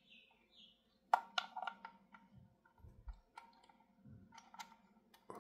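Faint small clicks and taps as a 5654 miniature glass vacuum tube's pins are worked into a ceramic socket on a tube preamp: a quick run of clicks about a second in, then scattered ones, with a few soft low bumps from handling the unit.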